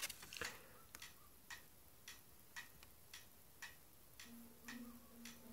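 Faint, steady ticking, about two ticks a second, evenly spaced. A low steady hum comes in about four seconds in.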